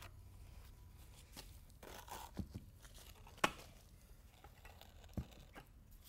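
Scraping and scattered clicks of a small notch trowel, scraping out the pail and then spreading freshly poured self-leveling urethane concrete across the floor. One sharp click about three and a half seconds in is the loudest, with another about five seconds in.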